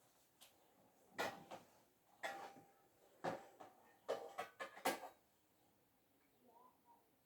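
Hard objects being handled: about a dozen clattering knocks and clinks in the first five seconds, some with a brief ringing, then they stop.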